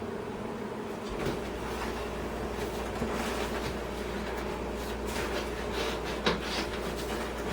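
Packing pieces being worked loose from a lawn mower's shipping box: rubbing and rustling with a few light knocks.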